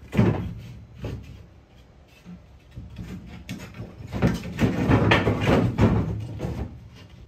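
A sharp knock, another about a second later, then a run of loud clattering knocks between about four and six seconds in: 1x2 cedar wood strips being set down and shifted on the van's bare ribbed metal floor.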